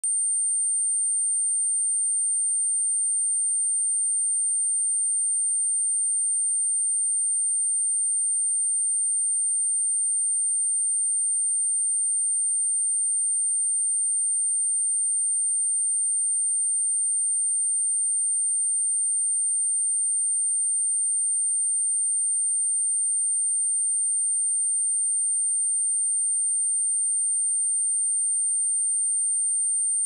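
A pure 8893 Hz sine-wave test tone, a single steady high-pitched whistle held at constant level.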